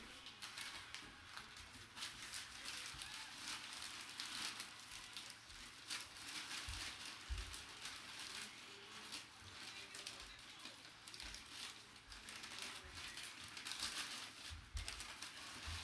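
Plastic packaging crinkling and rustling as it is handled, in many short irregular bursts, with occasional dull bumps.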